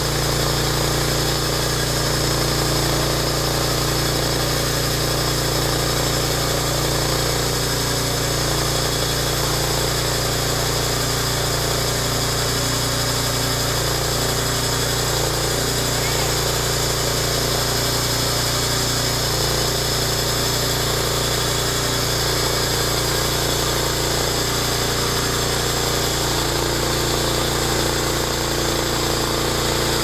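Norwood LM29 portable band sawmill's engine running steadily at a constant speed, driving the band blade, with no change in pitch or level.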